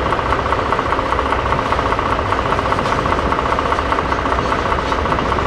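Diesel locomotive engine running steadily at low revs, a loud, even throb with a fast regular beat.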